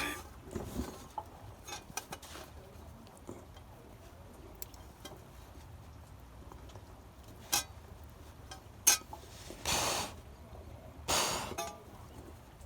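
Scattered light metallic clinks and knocks, with a couple of short rustling scrapes about two thirds of the way through, from hands and a tool working in the engine bay.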